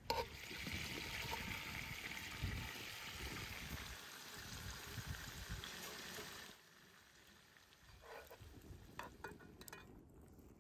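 Butter melting and sizzling in a hot iron wok, a steady hiss that drops off suddenly about six and a half seconds in. A few light clicks and taps follow near the end.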